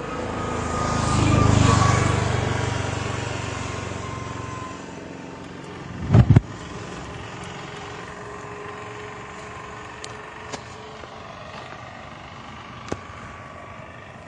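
A passing motor vehicle, swelling to a peak and fading away over the first few seconds. About six seconds in comes a sudden loud low thump, then a low steady background with a few faint ticks.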